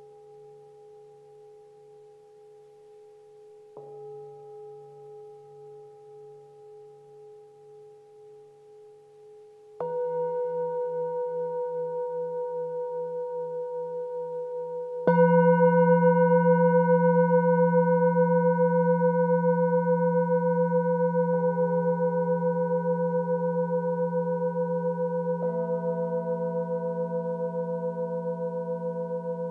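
Metal singing bowls struck one after another with a mallet, about every five or six seconds, so that their long, wavering tones overlap and build up. The loudest strike comes about halfway through, and each ring slowly dies away.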